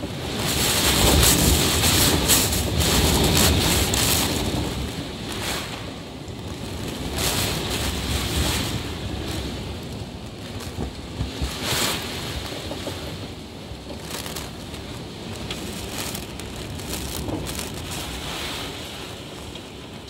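Typhoon wind gusting with heavy rain, the gusts buffeting the microphone. The strongest gusts come in the first four seconds or so, then it settles into a steadier rush of wind and rain with smaller gusts.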